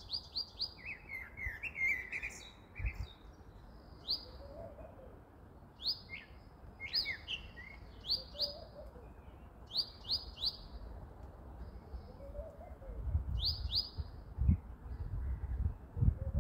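Small birds chirping: short high notes in quick runs of three or four, repeated every couple of seconds, with lower chirps in between. A low rumbling noise comes in near the end.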